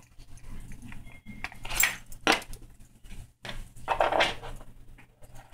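A Bengal kitten's plastic cone collar and metal collar tag knocking and jingling against the food cup and the floor as it eats, in several short bursts of clatter.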